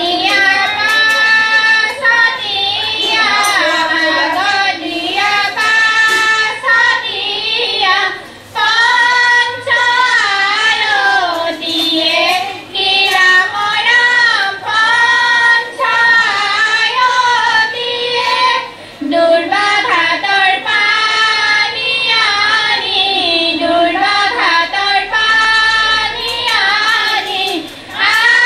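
A high voice singing a flowing melody in long phrases with held, gliding notes, pausing briefly for breath.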